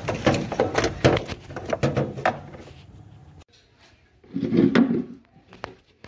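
Hand tool clicking and scraping at a washing machine wash motor's mounting screw: a quick run of knocks for about two and a half seconds. A single dull thump comes about four and a half seconds in.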